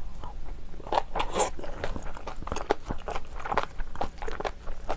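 Close-miked chewing of a mouthful of kimchi stew and kimchi: irregular wet mouth clicks and smacks, several a second.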